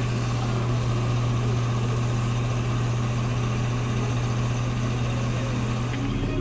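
Heavy vehicle engine running steadily with a low, even hum, under a haze of outdoor noise.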